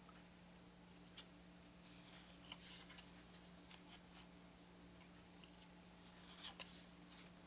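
Faint rustles and light clicks of cardboard game cards being handled and set down one by one, over a steady low hum.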